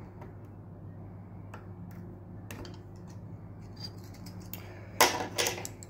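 Steel circlip pliers clicking and scraping against an internal circlip inside a Peerless 1000 right-angle gearbox housing, light metal ticks at first, then one sharp metallic snap with a brief ring about five seconds in.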